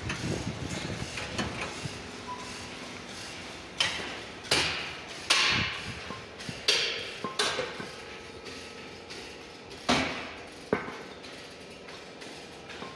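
Irregular hammer blows on metal, about seven of them spaced half a second to a few seconds apart, each ringing briefly.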